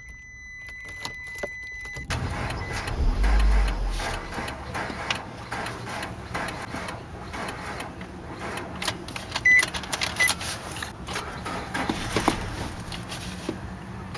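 A car engine being cranked by its starter without catching, the sign of a car that won't start. It begins about two seconds in, after a steady high tone, with a heavy low surge around the first second of cranking.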